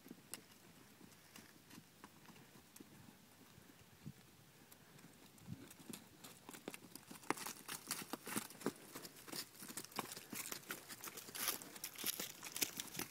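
Horses' hoofbeats on grassy turf, faint and sparse at first, then more frequent and louder from about six seconds in as the horses come close.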